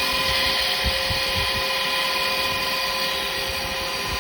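Wood lathe running with a steady motor whine while a carbide detail chisel takes a light cut in spinning yew, giving a steady hiss.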